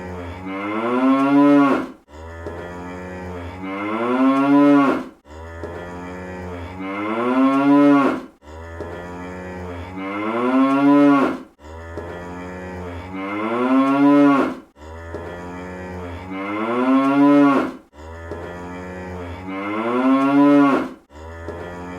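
Cartoon cow moo sound effect, the same moo looped over and over about every three seconds. Each moo rises in pitch and grows louder toward its end, then cuts off suddenly.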